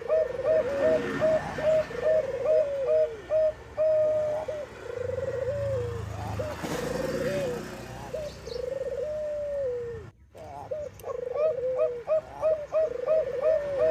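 Zebra doves cooing: quick runs of short, clipped coos alongside longer trilled coos that drop in pitch at the end. The sound breaks off for a moment about ten seconds in.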